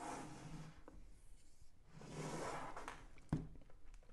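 A cardboard box being handled and turned over: soft brushing and sliding of card against hands and the table, with one light knock a little over three seconds in as it is set down.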